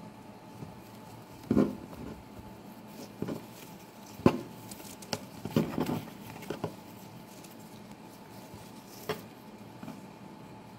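Ribbon rustling and sliding as a bow is untied and pulled off a cardboard gift box, with scattered light taps and knocks from handling the box; the sharpest knock comes about four seconds in.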